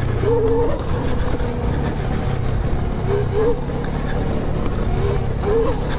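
Bomb Moto B2 electric dirt bike being ridden on a dirt trail in power mode 2. A steady rumble of wind and tyres runs throughout, and the electric motor's whine rises and dips in short spells three times.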